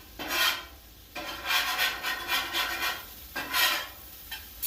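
Metal spatula scraping across the steel top of a Blackstone griddle in about four rasping strokes, loud enough to draw complaints.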